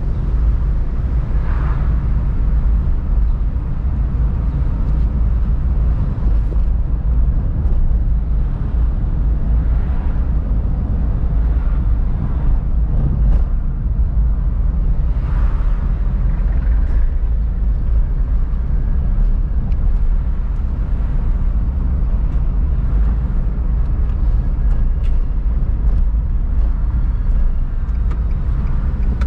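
Steady low rumble of a car driving slowly through town streets, engine and road noise heard from the car, with a couple of brief fainter swells of higher noise.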